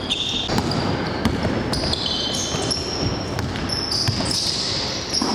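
Basketball game sounds in a gym: a ball bouncing on the hardwood floor and sneakers squeaking, echoing in the large hall.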